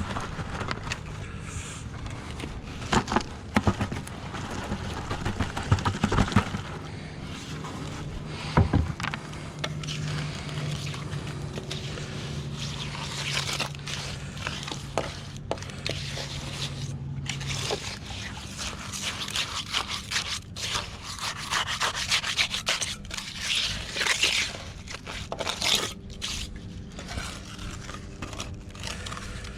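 Wet concrete being scraped and worked by hand with a tool, in repeated rough scraping strokes with a few sharp knocks in the first third, as a piling's snap-jacket form is filled and its top crowned.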